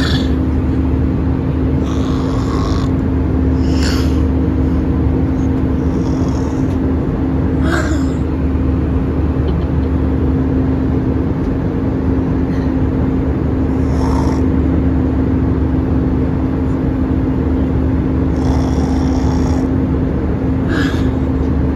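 Steady drone inside an airliner cabin in flight: jet engine and airflow noise with a constant low hum and a steady tone. A few brief faint noises come and go over it.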